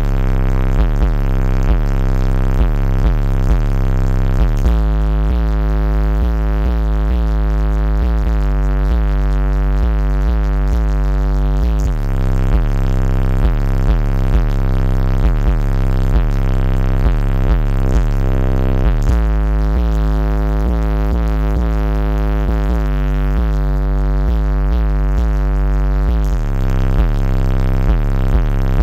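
Electronic music with a heavy synth bassline played very loud through a truck's car-audio system of several large subwoofers, heard from inside the cab. The deep bass holds steady throughout and grows heavier for long stretches.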